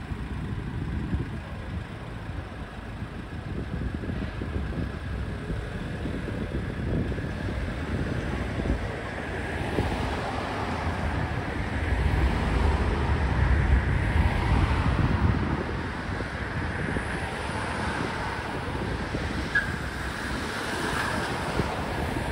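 Outdoor street ambience: steady traffic noise with wind buffeting the microphone, a low rumble swelling for a few seconds past the middle.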